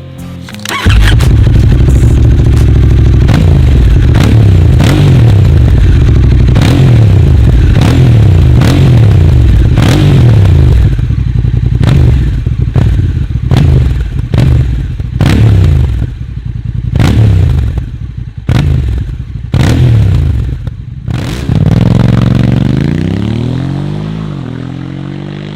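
Honda Africa Twin parallel-twin engine through an aftermarket exhaust, revved hard over and over with pitch climbing and dropping, and sharp cracks between the revs. Near the end the revs fall away and the engine slows and quietens.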